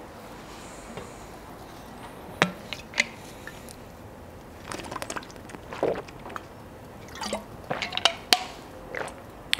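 A scattering of short sharp clicks and small wet-sounding ticks over quiet room hiss, two single ones early and then quicker clusters about five and eight seconds in.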